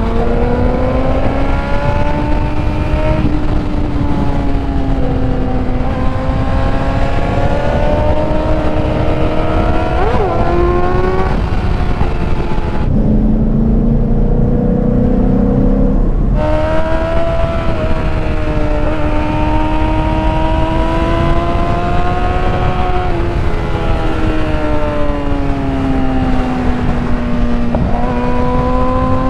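Vehicle engine running at road speed under changing throttle, its note rising and falling gently several times over a steady rush of wind and road noise. About halfway through it drops to a deeper, rougher note for about three seconds before climbing again.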